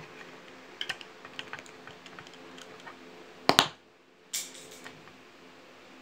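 Handling noises: scattered light clicks and taps, then a sharp knock about three and a half seconds in and a second, softer knock a moment later.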